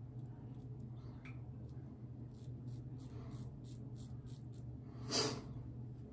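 Muhle R41 double-edge safety razor with an Astra blade scraping through lathered stubble in short strokes, a faint rasp at about four strokes a second, with one louder brief scrape about five seconds in.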